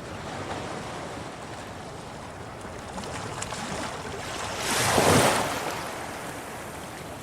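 Sea waves washing against rocks on a rising tide: a steady surf wash with faint trickles, and one wave surging louder about five seconds in before it drains away.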